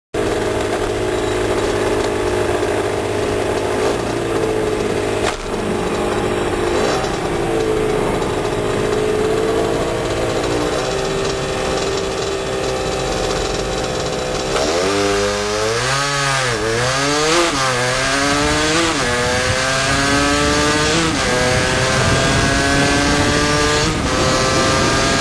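Beta RR50 supermoto's 50cc two-stroke single-cylinder engine running under way. Its pitch holds fairly steady for about the first half, then dips and rises sharply a few times. Near the end it climbs repeatedly, with a sudden drop between climbs as it shifts up through the gears.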